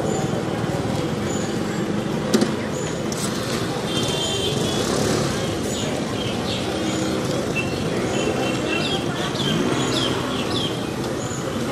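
Busy street ambience: steady traffic of motor scooters and other vehicles, with indistinct voices of passers-by and birds chirping repeatedly. A sharp click about two seconds in.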